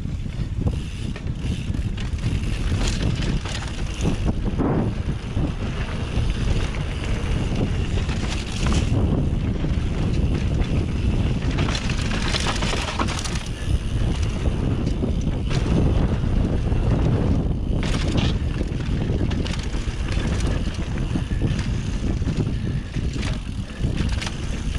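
Mountain bike descending a dirt downhill trail: steady rushing wind on the rider's camera microphone, with the tyres rolling over dirt and the bike rattling, swelling louder in a few faster stretches.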